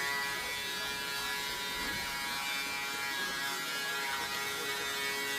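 A steady buzzing hum with many overtones, unchanging throughout.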